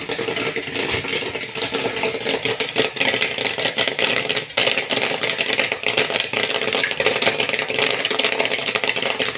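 Corn kernels popping rapidly in a 12-volt popcorn machine's kettle, a dense crackle of pops over the steady hum of the stirrer motor. The popping means the batch is still cooking.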